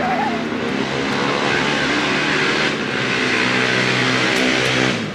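An engine running steadily under a hissing rush that swells midway and cuts off suddenly near the end.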